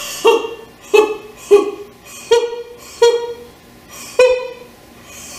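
A woman singing short, sharply attacked staccato "ho" syllables on a high note, about six with pauses between, each begun with a breathy push. This is a breath-support exercise, each note kicked out by the lower abdominal muscles.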